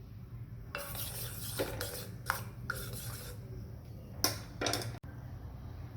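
Kitchen handling sounds while spices are added to a pot: a rough scraping and rattling for a couple of seconds, then two sharp clicks.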